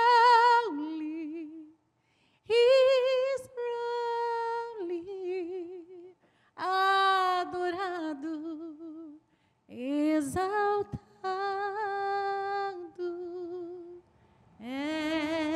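A woman singing a slow gospel worship chorus unaccompanied into a microphone, in several long phrases with vibrato, each ending on a held note, with short pauses between them. Near the end she sings the Portuguese word "exaltado".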